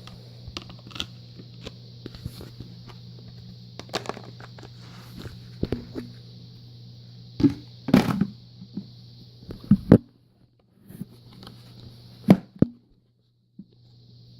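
Irregular knocks and thuds, a few of them loud, over a steady low hum with a hiss. The hum cuts out briefly twice near the end.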